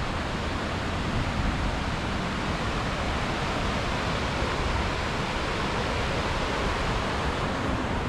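Swift river water rushing: a loud, steady, even noise that does not change.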